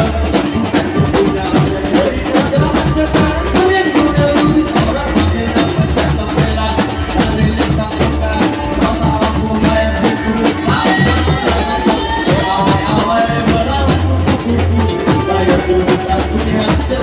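Drum band music: a fast, steady drum beat with bass drums under a pitched melody.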